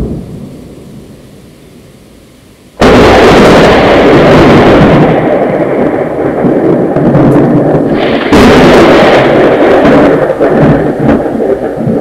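Close thunder. The tail of an earlier peal fades away, then a sudden loud clap comes about three seconds in and rolls into a long rumble. A second sharp crack follows a few seconds later and rumbles on, fading near the end.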